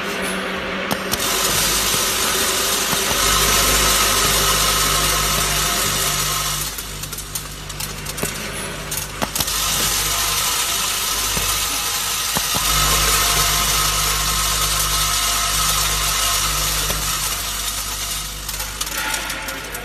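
Screw and bolt weighing and packing machine running. A low hum starts and stops in spells of a few seconds while the metal hardware rattles steadily, with sharp clicks now and then.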